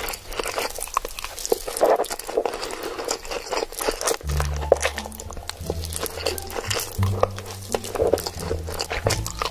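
Close-miked slurping and wet mouth sounds from a mouthful of noodles, a dense run of small clicks and sucking noise. Background music with a bass line comes back in about four seconds in.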